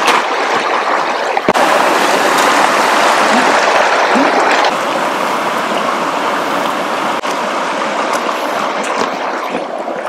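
A shallow, boulder-strewn river rushing over stones: a loud, steady wash of water.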